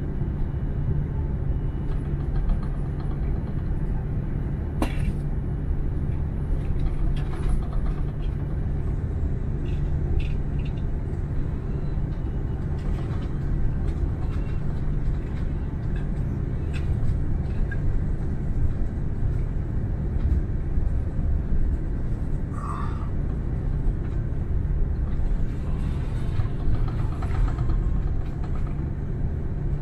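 Steady low cabin rumble of an Airbus A330-300 taxiing, its Rolls-Royce Trent 700 engines at low taxi power with the landing gear rolling, heard from a window seat over the wing. A sharp click about five seconds in and a few faint knocks from the cabin.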